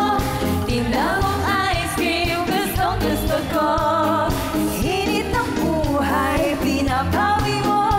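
A group of women singing a pop song live into headset microphones, over a backing track with a steady beat.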